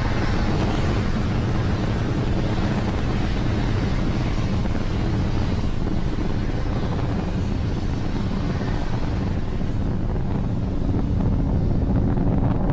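Falcon 9 rocket's first-stage engines rumbling steadily during ascent, a dense low rumble that grows slightly louder near the end.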